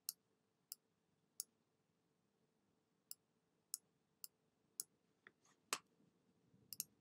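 Computer mouse clicks, short and sharp, about a dozen at irregular intervals with a pause of about a second and a half after the first few, near silence between them.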